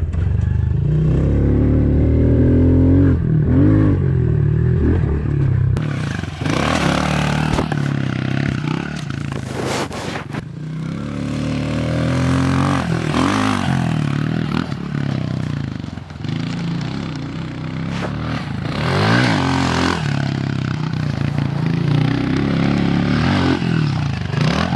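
Honda CRF110 pit bike's small single-cylinder four-stroke engine running as it is ridden around a dirt track. The revs rise and fall with the throttle while the bike stays in one gear, with the stock exhaust sounding fairly quiet. About six seconds in, the sound changes from the rider's onboard camera to a trackside view of the bike going over the jumps.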